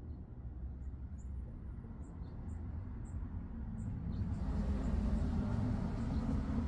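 Outdoor ambience: a low vehicle rumble that swells about four seconds in, under a run of short, high chirps from a small bird repeated every half second or so.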